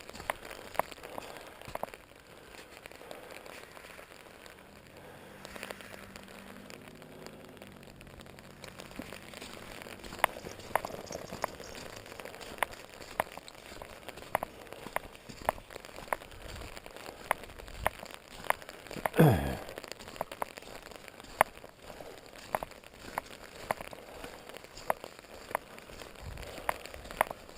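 Rain drops tapping on an umbrella held overhead: irregular sharp ticks, several a second, over a steady rain hiss. About two-thirds of the way through, a short loud squeal falls sharply in pitch.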